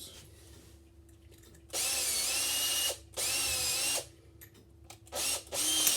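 Power drill running in three short bursts, its motor whine rising and then holding steady each time, pre-drilling pilot holes for flathead screws.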